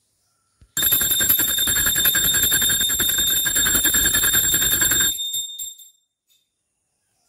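Puja hand bell rung rapidly for about four seconds, a fast clattering ring with high ringing tones. It stops suddenly and the ring dies away.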